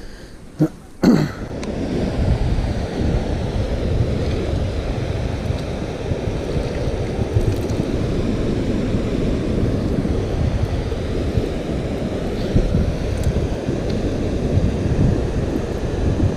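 Steady rumbling wind noise on the microphone over the rush of a river riffle, after two sharp clicks about a second in.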